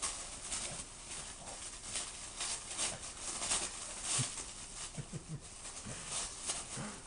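Wrapping paper crinkling and tearing in quick, irregular rustles as a Boston terrier puppy rips at a wrapped present with its mouth. A few short, low dog sounds come in during the second half.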